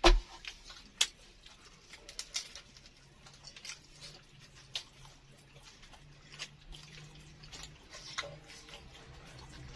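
Close-miked eating of a crispy fried egg martabak with vermicelli filling: irregular crisp crunches and mouth clicks, the loudest right at the start and another about a second in.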